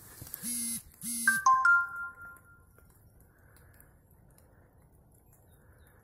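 A mobile phone going off: two short vibration buzzes, then a two-note electronic chime that rings out and fades within about a second.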